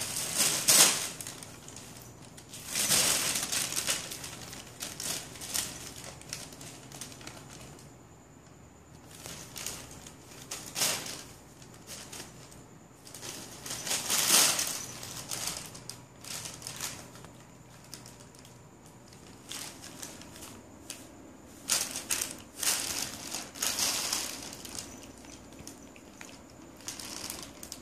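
A plastic carrier bag crinkling and rustling in irregular bursts as a cat pounces and wriggles inside it, with quieter stretches in between.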